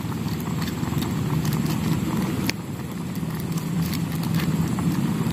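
Steady low rumble of a portable gas burner under a boiling pot of clams, with light scattered crinkling clicks as a small sachet of ground pepper is torn open.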